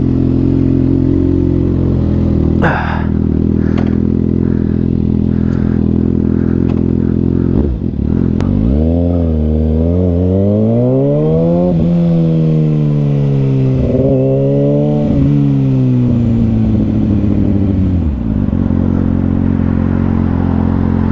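Kawasaki ZX6R's inline-four engine through an M4 carbon slip-on exhaust, idling steadily. About eight seconds in, the revs climb in steps with brief dips, hold and waver, then fall back to idle a few seconds before the end.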